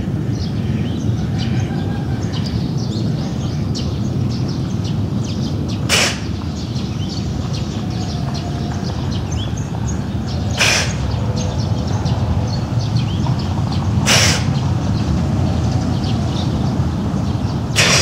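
A giraffe sneezing four times, each a short hissing blast of air through the nose, a few seconds apart; the uploader puts the sneezing down to pollen irritating its nose. Birds chirp over a steady low rumble of outdoor noise behind.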